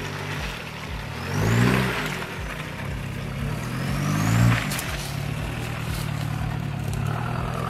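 Diesel engine of a mid-1990s Toyota Land Cruiser Prado crawling through mud, revving up twice with a rising note, about a second and a half in and again near four and a half seconds.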